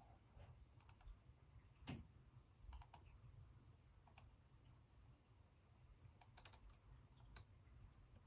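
Near silence with about a dozen faint, sharp clicks at irregular intervals from computer controls, over a low steady room hum.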